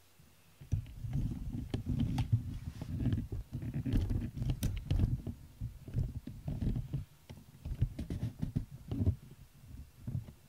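Handling noise: irregular low rubbing and bumping with scattered small clicks, as the microphone is moved against fabric. It starts about a second in and dies away near the end.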